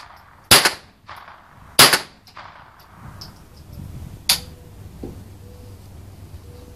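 Remington 597 semi-automatic .22 LR rifle firing two sharp shots about a second and a half apart, followed a couple of seconds later by a fainter sharp crack.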